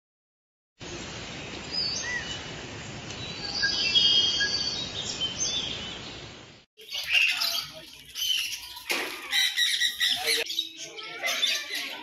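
Forest ambience with a steady hiss and scattered bird whistles and chirps. About seven seconds in it cuts to many aviary birds chirping and calling busily, with a sharp knock about nine seconds in.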